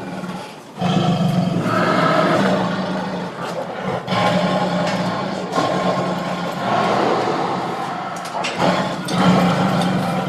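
Angry tiger growling and roaring in a string of long, deep growls a few seconds each, broken by brief pauses.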